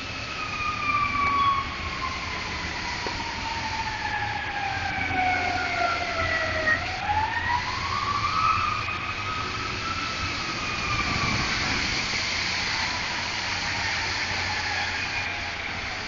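Fire siren winding down, its pitch falling slowly for about seven seconds. It is spun back up for a second or two, then winds slowly down again.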